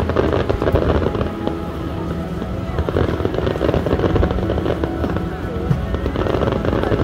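Aerial fireworks bursting in a continuous run of bangs and crackles, with music playing alongside.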